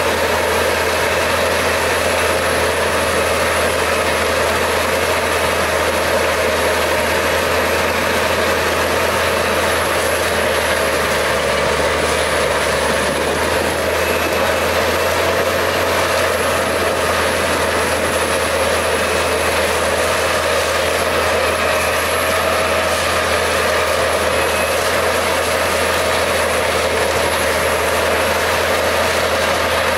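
Albach Diamant 2000 wood chipper's 770 hp six-cylinder engine running steadily under load as it chips logs and blows the chips out, with a steady high whine over it.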